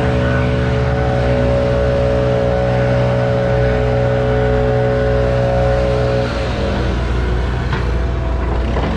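Bobcat T870 compact track loader's diesel engine running steadily close by as the machine drives up with its bucket; about six seconds in the even engine note breaks up into a rougher, noisier sound.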